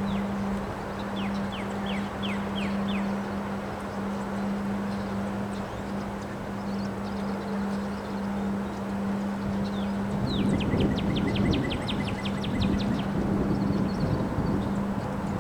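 Wind blowing in a storm, buffeting the microphone more heavily in the second half, over a steady low hum. Birds chirp through it: a short series of about five falling notes a second or so in, and a quicker run of about a dozen notes near ten seconds.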